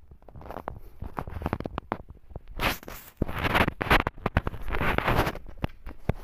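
Close, scratchy rustling and scraping with many small clicks as a white mother cat and her nursing kittens move against fur and a blanket. The rustling comes in several longer bursts from about two and a half seconds in, while the mother grooms the kittens.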